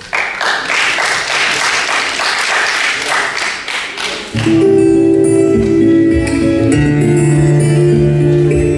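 Audience applauding for about four seconds, then a recorded song's instrumental intro starts with guitar and a steady bass line.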